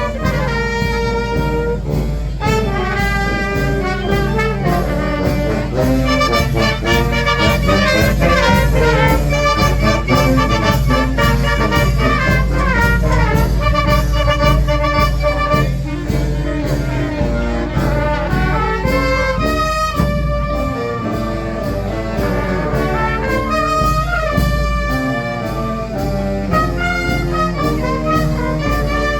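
Fanfare brass band playing a lively tune: trumpets and trombones carry the melody over a steady drum beat.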